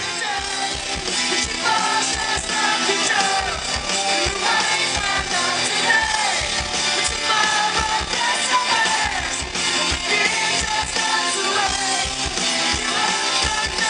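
Music with singing over guitar and a steady drum beat.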